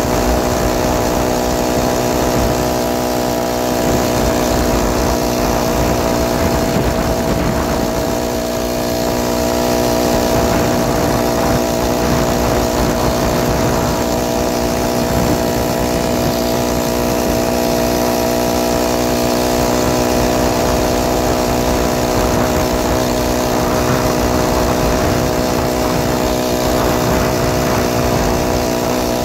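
Small 49cc single-cylinder four-stroke engine of a motorized bicycle running steadily at an unchanging pitch, with a rough low rumble of wind and road noise underneath.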